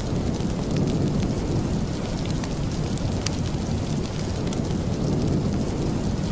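Steady heavy rain with a deep, continuous low rumble underneath, and scattered sharp crackles or ticks on top.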